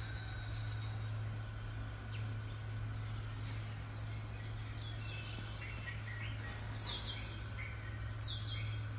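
Bird calls: a few small high chirps, then two loud calls near the end, each sweeping quickly downward in pitch. A steady low hum runs underneath.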